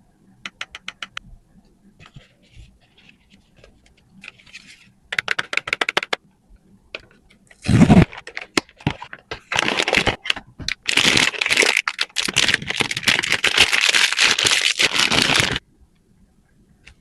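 Blind-box packaging being handled and opened: quick clicks and taps, a sharp knock about eight seconds in, then several seconds of tearing and crinkling packaging that stops suddenly near the end.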